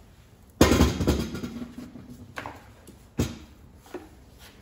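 Metal clanks and knocks from hand tools and small-engine parts being handled. One loud clank comes about half a second in and rings on briefly, followed by a few lighter knocks.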